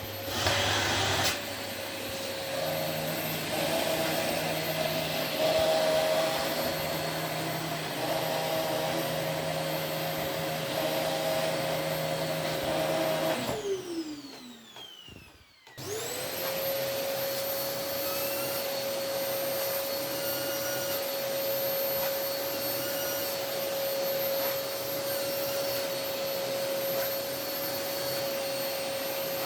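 Ordinary household vacuum cleaner running with its suction pipe attached to a homemade plastic iron lung, drawing air out of it. About halfway through it is switched off and the motor winds down in a falling whine, then it is switched back on and spins up to a steady whine again.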